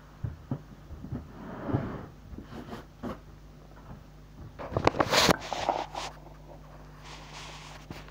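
Handling noise of a phone being moved and picked up: scattered knocks, taps and rustling, loudest in a burst about five seconds in, over a steady low electrical hum.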